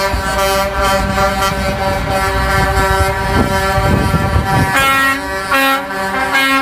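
Truck air horns on concrete mixer trucks sounding a long held chord over the low rumble of the trucks' engines, then a few short blasts near the end.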